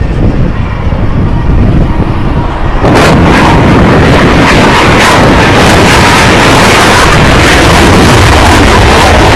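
Blue Angels F/A-18 Hornet jet flying low past. Its engine noise comes in suddenly about three seconds in and then holds steady and very loud, at the limit of the recording.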